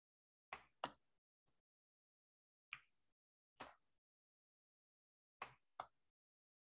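Computer mouse clicking: a handful of short sharp clicks, some in pairs, with near silence between.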